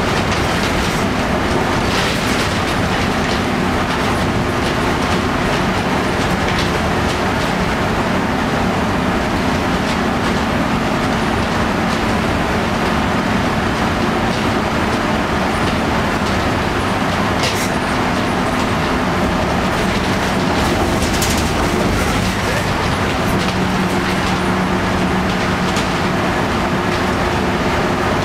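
Inside a 1990 Flxible Metro bus under way: its Detroit Diesel 6V92TA two-stroke V6 diesel runs steadily under load over loud road and tyre noise. Sharp knocks and rattles from the body come now and then on a bouncy ride.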